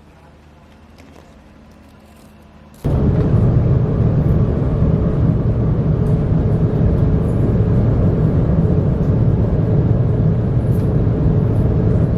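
Faint ambience, then about three seconds in an abrupt switch to the loud, steady rumble of a moving vehicle, heavy in the low end.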